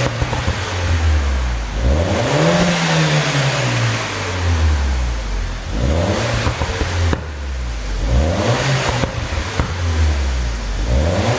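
A 2012 Mini Cooper S Coupe's turbocharged four-cylinder engine revving up and falling back about five times, with rapid exhaust pops and crackles as the revs drop. The crackle on overrun comes from a 'pop sound' engine tune.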